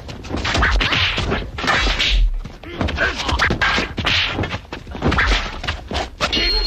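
Fight sound effects: a rapid, dense run of whacks and thuds from wooden staff strikes and blows, with noisy swells between the hits.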